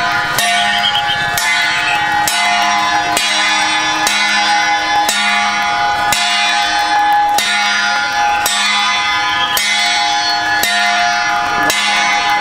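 Ringing metal percussion struck in a steady beat about once a second, the same ringing tones sounding on between strikes.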